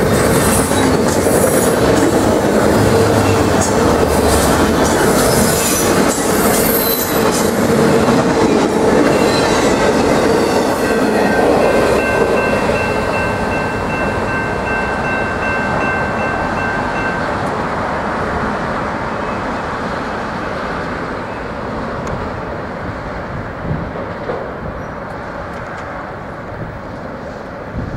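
Freight train of auto-rack cars rolling past, steel wheels running and squealing on the rails. About halfway through a steady high tone lasts around five seconds, and the train noise then slowly fades as the end of the train rounds the curve away.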